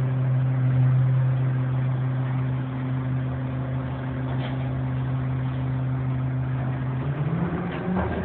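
Refuse truck's diesel engine running with a strong, steady hum; about seven seconds in its pitch steps up as the engine speeds up.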